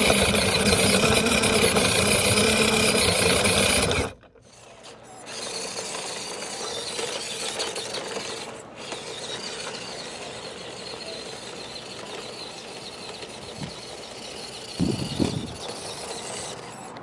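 WPL C34 1/16 scale RC crawler's electric motor and gearbox whining and rattling as it drives over wood chips and boards. For the first four seconds it is loud, heard through a camera mounted on the car. After a cut it is fainter, heard from a distance, with a brief louder bump about fifteen seconds in.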